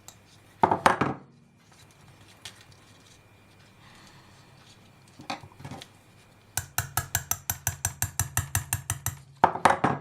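Light metal-on-metal taps from a small hammer on a drift, seating a ball bearing into a TBS 750 kV brushless motor: a loud cluster of clinks near the start, a few scattered taps, then a quick even run of about seven taps a second, ending in another loud cluster.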